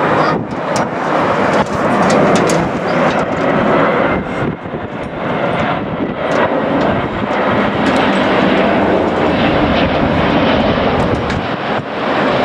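Jet airliner's engines running as it passes low on approach to land, a loud, fairly steady rushing noise.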